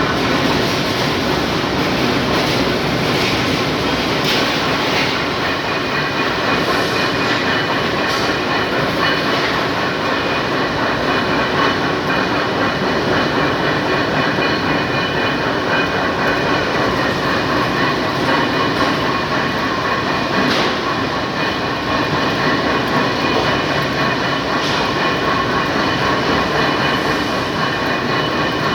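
Small lathe running and cutting: a steady, loud mechanical clatter with a few held tones through it.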